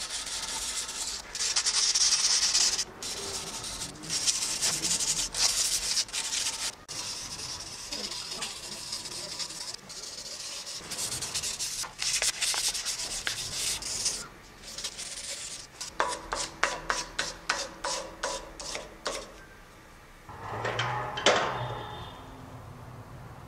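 Steel ball peen hammer head being hand-sanded with fine P800 sandpaper: scratchy back-and-forth rubbing strokes that turn to quick, short strokes about four a second. Near the end, a brief clatter of handling as the head is taken out of the vise.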